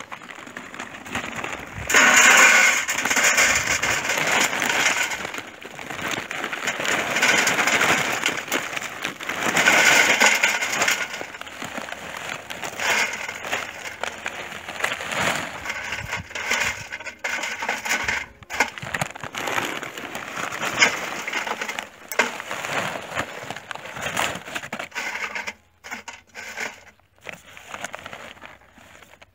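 Lump wood charcoal poured from a paper sack into a stainless steel grill pan, the chunks clattering against the metal and each other in several surges. Near the end it thins to scattered clicks and knocks as pieces settle and the paper bag is handled.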